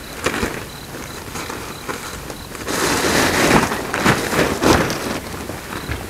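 Footsteps crunching and rustling through forest leaf litter and undergrowth: a few separate steps, then a louder, denser rustle from about halfway that lasts a couple of seconds, with sharper steps in it.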